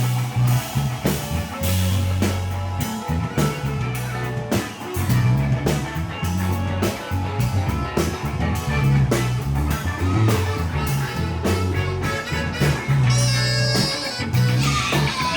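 Live funk band playing an instrumental passage with a steady beat and a prominent bass line.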